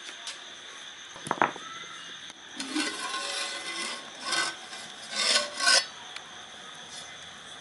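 A stone pestle working in a stone mortar: a sharp knock, then rasping, scraping grinding strokes.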